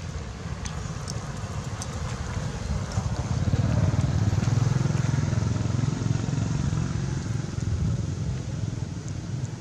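Low engine rumble of a motor vehicle passing on the road, swelling about three seconds in, loudest a couple of seconds later, then easing off.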